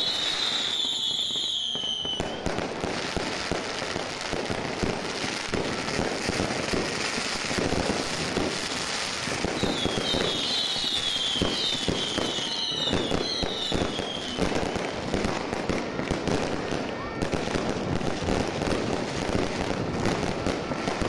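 Aerial fireworks going off in a dense, continuous crackle of bangs and pops. Several high whistles falling in pitch are heard near the start and again from about ten seconds in.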